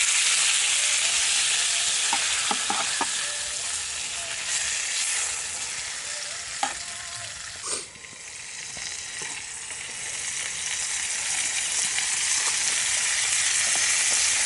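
Meat sizzling in a frying pan over a burning Swedish fire log. A few light clicks, then a knock about eight seconds in as the pan is set down on the log. The sizzle drops away after the knock and then builds back up.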